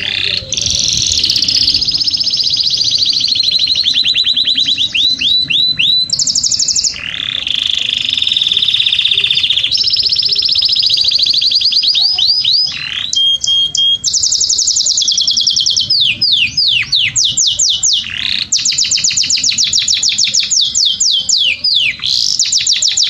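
Domestic canary singing a long, continuous song. It is made of rapid trills of quickly repeated downward-sweeping notes, alternating with held buzzy rolls, with only brief breaks. It is the kind of male canary song played to stimulate canaries to breed.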